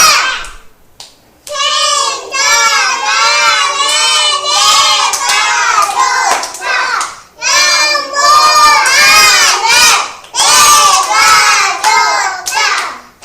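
A group of young children shouting a phrase together in unison, in several loud phrases with short breaks between: a chanted self-affirmation.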